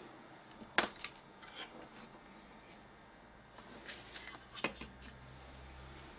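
Clicks and light knocks of a TV power-supply circuit board being picked up and turned over on the workbench, with one sharp click about a second in and a cluster of clicks around four to five seconds. A faint low hum sets in near the end.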